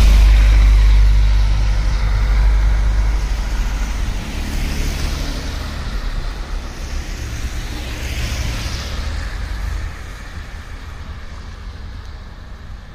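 Street traffic on a wet, slushy road: passing vehicles with hissing tyres and a low engine rumble. The rumble is strongest in the first few seconds, two swells of tyre hiss pass by, and the noise dies down near the end.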